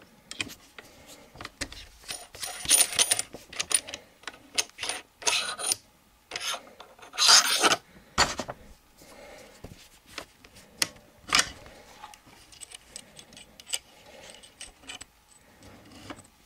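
Metal parts of a Charles Daly N4S 12-gauge semi-auto shotgun being worked by hand: the gas piston housing is slid on the magazine tube and the split half-ring retainers are worked free. The sound is a busy string of metal scrapes, rubs and clicks, loudest in a longer rub in the middle, then a few sharp clicks and softer handling.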